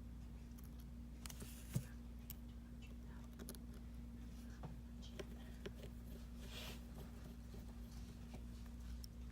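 Faint clicks and taps of small tools and phone parts being handled on a workbench during smartphone reassembly, with a sharper click about two seconds in, over a steady low electrical hum.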